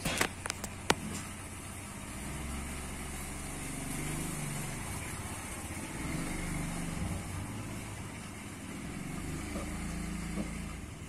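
A few sharp clicks, then an ACA espresso machine's pump running with a low buzzing hum that swells and shifts, stopping near the end: a test run of the repaired machine.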